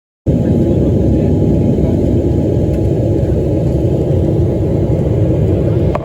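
Steady low rumble of engine and airflow noise inside an airliner cabin in flight. It starts suddenly just after the start and cuts off abruptly at the end.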